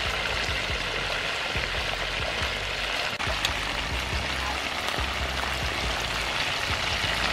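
Chicken wings deep-frying in hot soybean oil: a steady, even sizzle.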